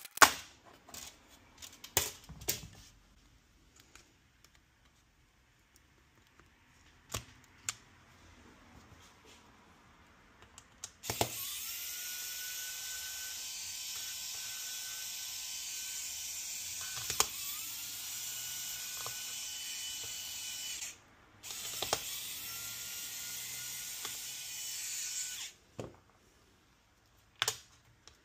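Pen-style electric precision screwdriver whirring as it backs out a laptop's internal screws. The motor spins up with a short rising whine, runs about ten seconds, stops, then runs again for about four seconds. Before it come a series of sharp clicks and knocks from handling the laptop's case.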